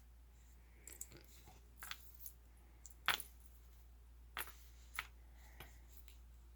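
Light clicks and taps from small craft pieces being handled, about eight in a few seconds, the sharpest about three seconds in.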